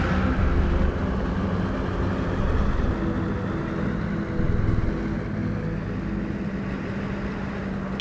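A large station wagon's engine running steadily as the car drives, a continuous low hum with no revving or tyre squeal.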